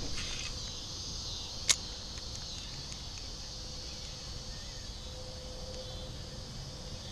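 Insects chirring steadily in a high, even chorus, over wind rumbling on the microphone. A single sharp click comes a little under two seconds in.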